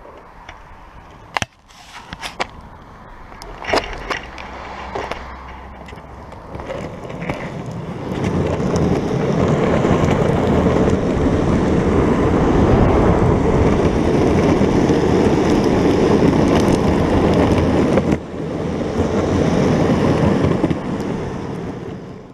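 Longboard wheels rolling on a tarmac path. A few sharp knocks and clacks come first, then a loud, steady rumble builds from about eight seconds in as the board picks up speed, with a brief dip near the end.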